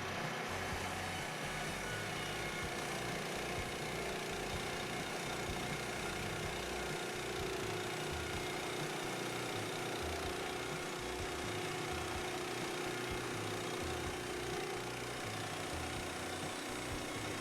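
Woodland Mills HM122 portable band sawmill running steadily, its gas engine under way as the band blade cuts lumber.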